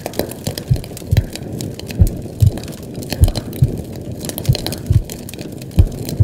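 Slow heartbeat, paired low thumps (lub-dub) recurring about every 1.2 seconds, over a steady crackling, hissing noise bed.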